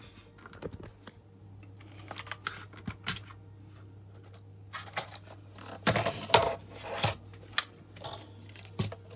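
A Redragon Kumara K552 mechanical keyboard being handled, giving irregular clicks and knocks. They are loudest about six to seven seconds in.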